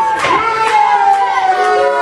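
Wrestling crowd shouting, with several long, high held cries that slowly fall in pitch and a few sharp claps or slaps among them.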